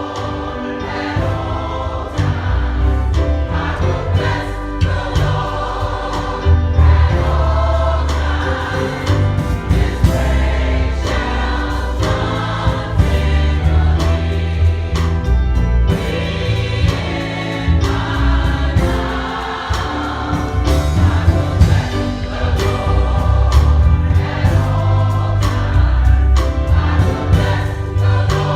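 Gospel choir singing in full harmony over instrumental accompaniment with a strong bass line and a steady beat.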